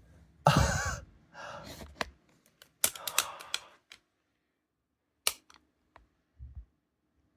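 Metal ceiling fan parts being handled during dismantling: a loud scrape or rattle about half a second in, two more rattling bursts, then a few scattered clicks.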